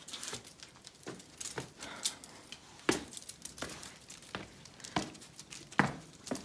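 Irregular footsteps and light knocks and clicks while walking over stone paving, the strongest about three, five and six seconds in.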